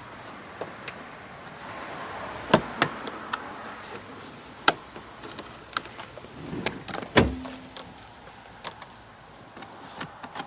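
Plastic interior trim of the car's roof lining being handled and pried: a scattering of sharp clicks and knocks, three of them louder than the rest, over light rustling.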